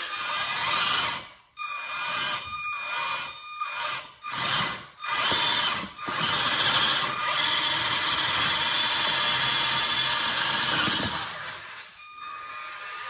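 Electric drive motor and gears of a cheap 4x4 RC truck whining as it drives on a hard floor. Several short bursts of throttle with cut-outs are followed by a longer steady run that dies away near the end.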